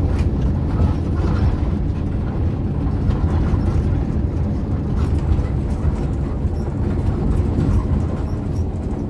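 Steady low rumble of engine and road noise inside the cabin of an intercity bus driving along a country road.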